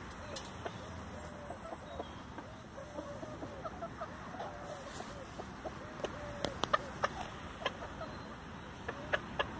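Chickens clucking, short soft calls repeated over and over as they feed on a pile of fresh grass clippings. There are a few sharp clicks in the second half.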